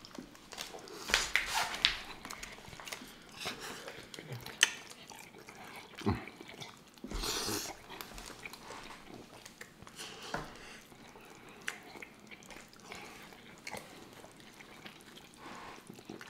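Close-miked eating sounds: chewing and biting into cheesy tacos, a run of scattered mouth clicks with a few louder bursts about a second in and around seven seconds in, the later one a short blowing breath.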